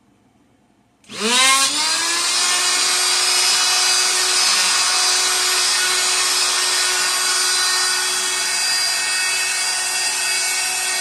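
Electric hand sander switched on about a second in, its motor whining up to speed and then running steadily while it sands the wooden tabletop.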